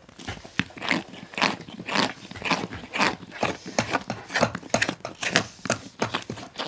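Hand carving of a wooden spoon: a knife cutting into the spoon's bowl in a quick, irregular run of crisp cuts, a few each second.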